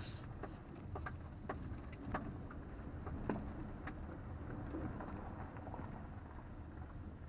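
A 2020 Toyota RAV4 XLE driving over a rough dirt trail, heard from inside the cabin: a steady low rumble with irregular knocks and clicks from bumps and rattles, the sharpest about three seconds in.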